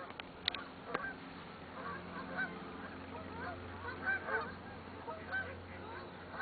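A flock of geese honking, many short calls overlapping, with two sharp clicks about half a second and a second in.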